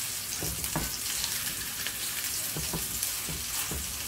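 Beef burger patties sizzling in hot oil in a frying pan, with several clicks and scrapes of a slotted spatula against the pan as the patties are turned over.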